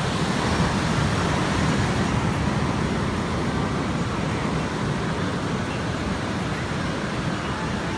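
Ocean surf washing in, a steady rushing noise that swells slightly in the first couple of seconds.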